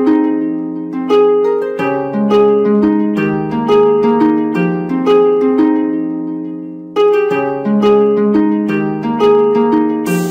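Background music: a gentle melody of plucked-string notes, each struck and then fading, with a brief pause about seven seconds in before the phrase picks up again. The music cuts off at the very end.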